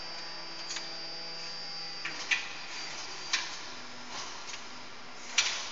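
Steady hum of a hydraulic press line running. Four short, sharp metallic clacks of the automatic part handling are heard over it, about a second or more apart.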